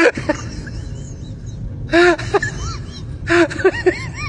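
Small dog giving short, high-pitched yelps and whines in clusters: one at the start, more about two seconds in, and a quick run of them near the end.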